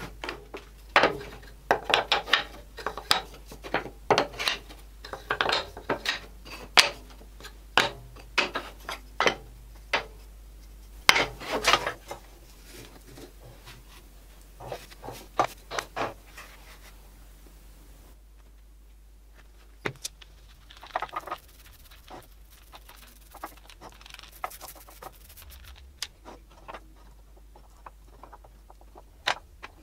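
Hardwood strips of amora, cherry and blackwood being handled, knocked together and set down: a run of sharp wooden clacks and knocks, dense through the first dozen seconds, then scattered softer taps and rubbing as the pieces are fitted into clamps.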